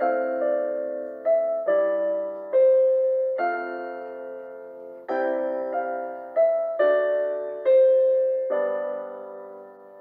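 Background piano music: a slow, gentle melody of single notes and chords, each struck and left to ring and fade.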